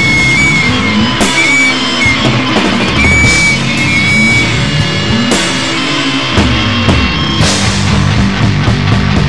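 Loud noise rock band recording: distorted electric guitars and drum kit playing a dense, continuous riff, with a high wavering guitar line over the first half and cymbal crashes about a second in, at about five and a half seconds and at about seven and a half seconds.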